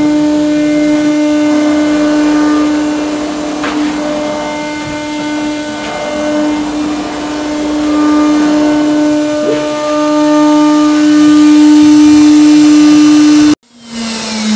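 4-axis CNC router running: the spindle motor gives a steady, loud whine, with fainter higher tones coming and going as the axis motors move the head. Near the end the sound cuts off abruptly and a lower whine comes back, slowly falling in pitch.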